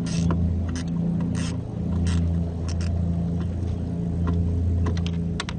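Screws being undone from a VW T4's number plate light with a screwdriver: short clicks and scrapes over a steady low engine-like hum that swells and fades about once a second.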